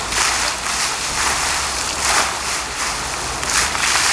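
Fountain water jets spraying and splashing back into the pool: a steady rushing hiss that swells and eases about once a second as the jets rise and fall.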